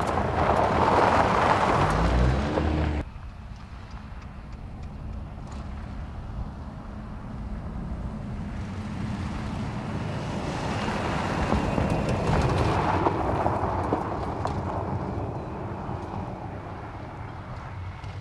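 2024 Toyota Tacoma TRD Off-Road pickup with the I-FORCE MAX hybrid turbo four-cylinder, driving fast over a dirt trail. Engine and tyres on gravel make a loud rushing rumble that cuts off suddenly about three seconds in. A second pass then swells up past the middle and fades away near the end.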